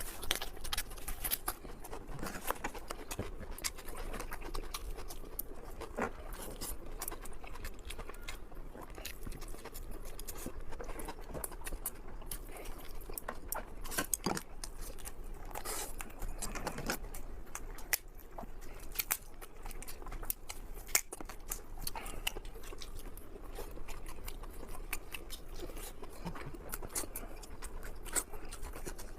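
A person eating fast, chewing and biting food, with many small sharp clicks throughout.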